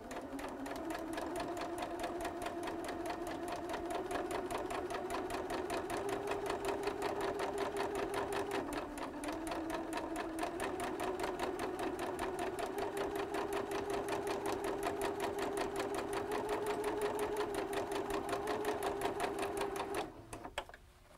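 Electric sewing machine running steadily, its needle stitching through cloth in a fast, even rhythm over a motor whine. Its speed dips briefly about halfway through, and it stops near the end.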